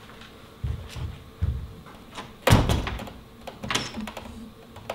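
A few low footfalls walking away, then a door swinging shut with a heavy thud about halfway through, followed by a few sharp clicks.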